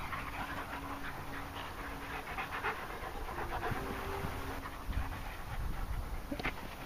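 Springer spaniel panting in quick, short breaths.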